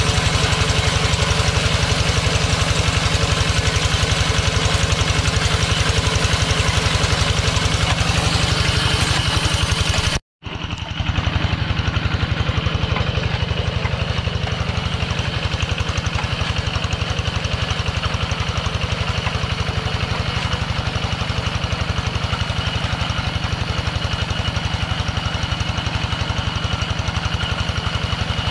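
Two-wheel hand tractor's single-cylinder diesel engine running steadily under load, with a fast, even chugging, as its cage wheels churn through a flooded rice paddy while plowing. The sound cuts out for an instant about ten seconds in, then the engine carries on.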